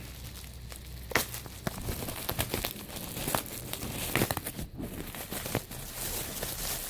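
Packaging around a boxed-up action figure being crinkled and torn open by hand, a steady rustle broken by many sharp crackles.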